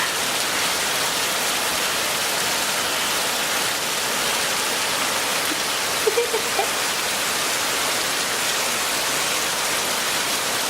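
Heavy rain pouring down, a dense, steady hiss of rain falling.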